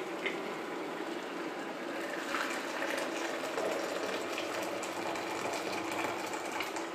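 Boiling water poured from an electric kettle into thin pancake batter in a glass bowl, a steady liquid pour that scalds the batter. Underneath is a steady low hum.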